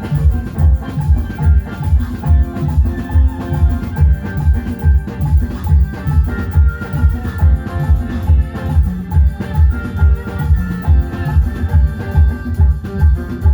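Loud music with a heavy, steady bass drum beat, about two beats a second, and melodic instruments playing over it.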